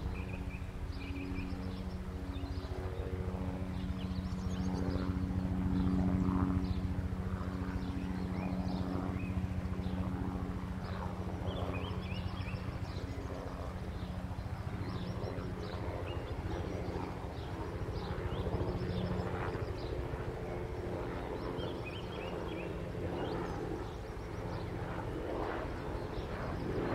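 DJI quadcopter drone's propellers humming steadily, with short high chirps, like birds calling, scattered throughout.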